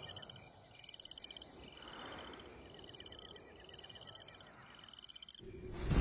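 Crickets chirping faintly in a steady run of short, evenly spaced trills. A low rumble swells in near the end.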